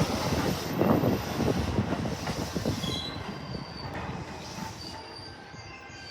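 Train running past the platform and moving away, its wheels clattering over rail joints as the sound fades. Thin, high wheel squeals come in during the second half.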